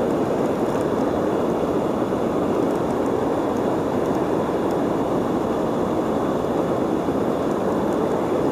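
Steady rush of river water flowing over rocks and riffles, heard close to the microphone.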